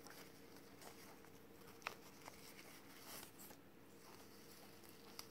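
Near silence: faint soft rustles and a few light ticks of satin ribbon being handled, over a faint steady hum.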